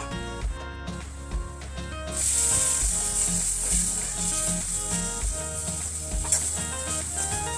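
Food sizzling in hot oil in a pan. The sizzle starts about two seconds in and goes on steadily, over background music.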